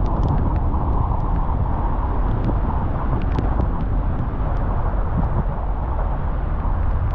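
A car driving in the rain: steady road and engine rumble with tyre noise, and scattered light ticks throughout.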